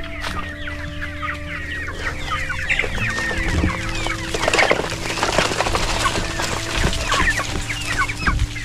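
A flock of chickens clucking and chirping, many birds calling at once, as they crowd in to feed on scattered rice; the calls grow denser about three seconds in.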